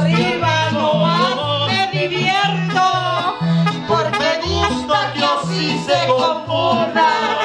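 Live mariachi band playing, with singing over accordion. A guitarrón bass alternates steadily between two notes in an even oom-pah beat.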